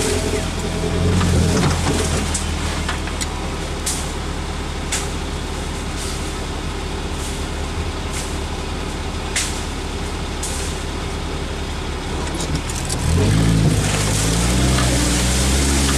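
An off-road vehicle's engine runs steadily at low revs while a few sharp ticks and scrapes come from branches and leaves brushing the body. Near the end the engine revs up and holds at a higher pitch.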